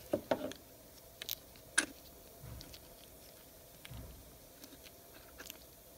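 Faint workbench handling noises: a few light knocks of the air drill's metal parts being picked up and set down in the first half second, then scattered clicks and soft squishing as mechanical grease is worked by finger into the drill's gear housing.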